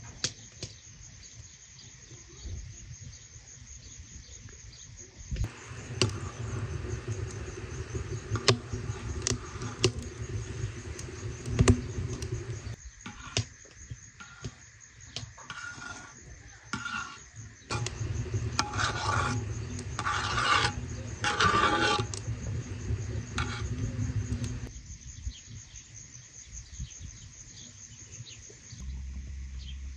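A metal spoon stirring and scraping in a large aluminium basin of jam, with scattered clicks and knocks for most of the middle stretch. Underneath, insects chirr steadily throughout.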